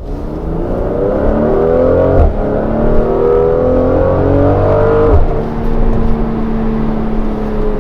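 Mercedes-AMG GLC 43's twin-turbo V6 accelerating hard. The engine note rises, breaks with a gearshift a little over two seconds in, climbs again until about five seconds in, then drops to a steady lower note.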